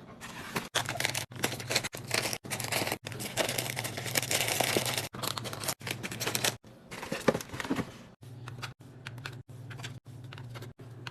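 Rapid string of short cut-together clips of food packaging and containers being handled and put away: crinkling and tearing plastic, clicking and tapping, with abrupt breaks between clips.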